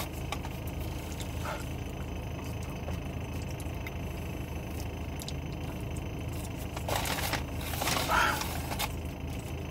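Eating fries and handling the paper food wrapping: faint chewing and crackly rustles, with two louder rustles about seven and eight seconds in. Under them is a steady low hum inside the car.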